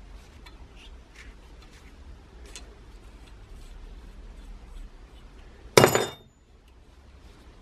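Small metal blowtorch parts clicking faintly as they are handled and set into a bench vise, then one sharp metallic clink with a brief ring nearly six seconds in.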